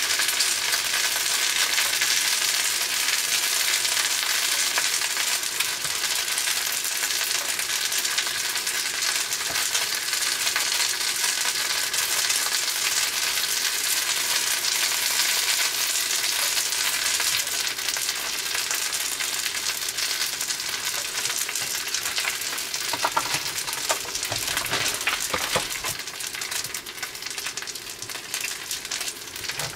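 An okonomiyaki sizzling steadily on an electric hot plate, a fine crackling hiss that eases a little in the last third, with a few faint clicks near the end.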